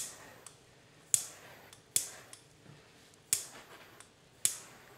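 Butane torch lighter being triggered again and again, about once a second: five sharp igniter clicks, each with a short fading tail, as the flame is flicked over a PLA print to burn off stringing.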